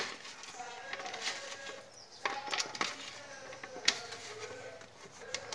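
Hands rubbing oil over thin raw potato slices on a plate: soft handling sounds with a few sharp clicks of the slices and fingers against the plate.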